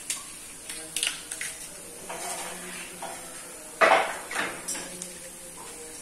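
Kitchenware clattering: bowls, containers and utensils being knocked and set down on a counter in a run of short clinks and knocks, the loudest clatter a little before four seconds in.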